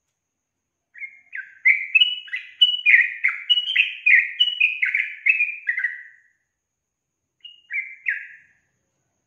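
Yellow-vented bulbul singing: a run of quick, mostly falling notes lasting about five seconds, then a short three-note phrase about a second later.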